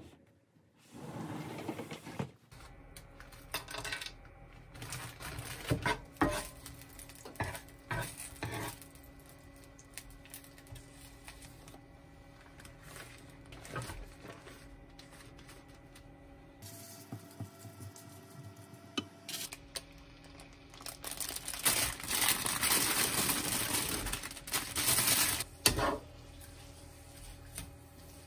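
Cooking at a nonstick frying pan: scattered knocks and clatter of a wooden spatula and food dropping into the pan. About twenty seconds in comes a few seconds of louder scraping and sizzling as the leftovers are stir-fried.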